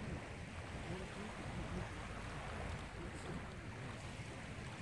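Small waves washing gently onto a sandy beach: a steady, even wash.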